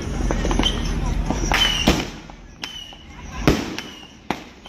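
Street fireworks going off: a dense crackle of firecrackers for about the first two seconds, then separate sharp bangs, with crowd voices underneath.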